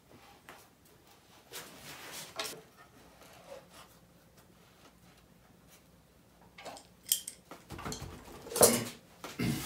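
Scattered metal clinks and knocks of hand tools and machine parts being handled during assembly of a wooden hand-powered band saw, with the loudest knocks near the end.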